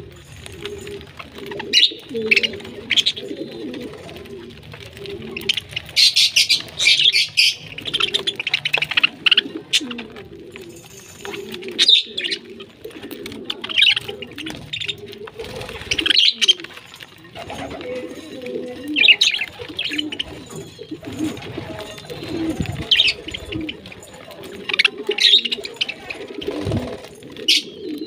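A flock of budgerigars chirping and chattering. Sharp chirps come in clusters every second or two over continuous lower calling, with wings fluttering as birds fly about.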